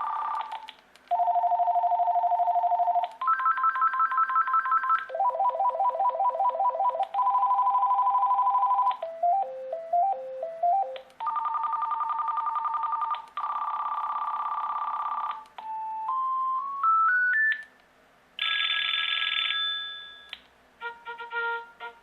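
VTech DS6361 cordless phone playing its ringer tones one after another, about ten different electronic rings of about two seconds each. They include warbling trills, a short stepped melody and a rising run of beeps.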